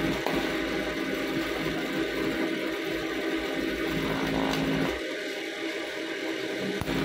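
TIG (argon) welding on steel knife blanks: a steady electric buzz and hiss from the arc and welding machine. The low hum drops out about five seconds in and comes back near the end.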